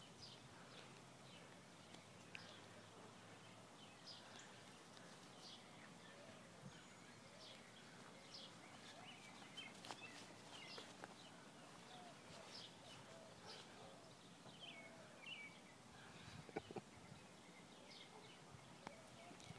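Faint outdoor quiet with scattered distant bird chirps, short and high, and now and then a soft click.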